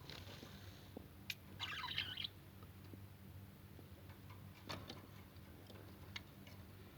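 Faint scattered clicks and taps as pet lovebirds move about on their hanger and perches, with a short scratchy rustle about two seconds in, over a steady low hum.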